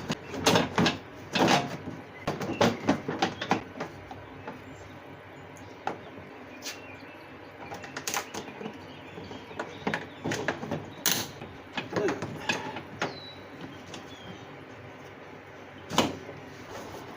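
Irregular knocks, clicks and clunks of riding mower parts being handled and fitted back together, a quick cluster in the first few seconds, then single knocks every second or two.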